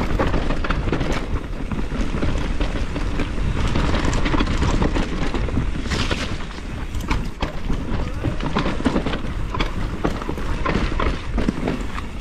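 Mountain bike descending a rooty dirt singletrack: tyres rolling and the bike rattling with frequent clicks and knocks over bumps, under a steady low wind rumble on the bike-mounted action camera's microphone.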